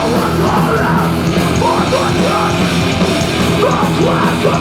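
A hardcore punk band playing loud and fast live, with distorted guitars, bass and drums.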